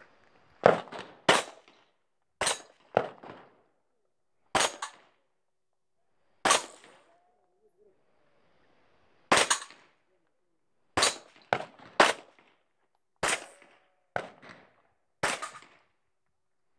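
Shotgun fired in a stage of rapid aimed shots, about a dozen in all: some single, some in quick pairs and triplets, with a pause of about three seconds in the middle.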